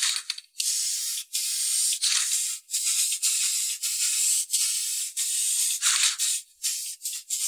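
Aerosol can of spray lacquer hissing in repeated bursts, among them one longer spray of about three seconds in the middle and a few quick short puffs near the end.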